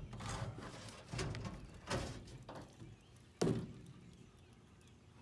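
A series of five or so sudden knocks and thumps, each trailing off quickly; the loudest comes about three and a half seconds in.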